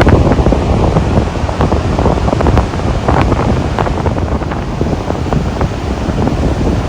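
Strong wind buffeting the microphone, a loud, crackling rumble, with surf beneath it.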